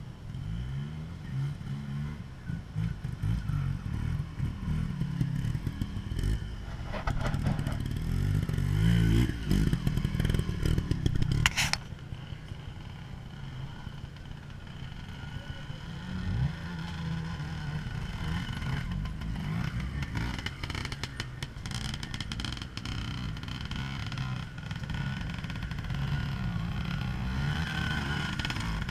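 Trials motorcycle engine revving in short bursts as the rider works up over rocks, loudest about a third of the way through. There is one sharp click a little before the middle.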